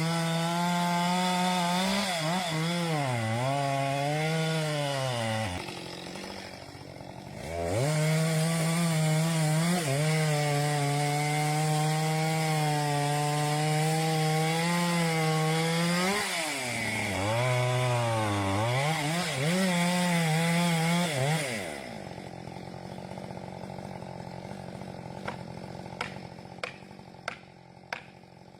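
Chainsaw running at full revs and cutting through a large tree trunk, its pitch sagging and recovering again and again as the chain bites into the wood. It eases off briefly about six seconds in, then cuts on until it stops a few seconds before the end. After that there are a few faint, sharp clicks.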